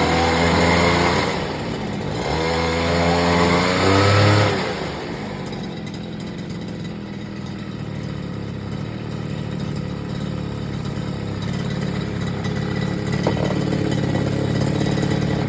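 Small engine of a brush cutter driving its shaft, centrifugal clutch and angled gear head with a cutting blade fitted, revved up twice in the first four seconds or so, then dropping back to a steady idle.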